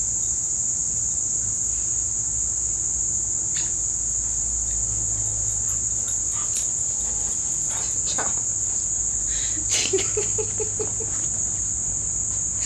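Steady high-pitched insect chorus, one unbroken shrill tone. About ten seconds in, a short run of five or six quick low pulses sounds over it.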